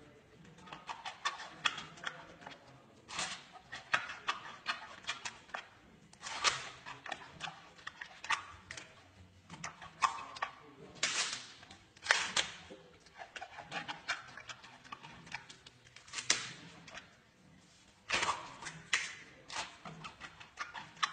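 Giant panda chewing a fresh bamboo shoot: irregular crisp crunches and snaps in quick runs, bite after bite, with short pauses between mouthfuls.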